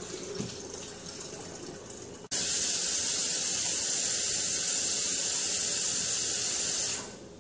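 Cool tap water running over brewed tea bags to rinse out the remaining tea. It starts as a quieter stream, jumps abruptly to a loud, steady full flow about two seconds in, and fades out shortly before the end.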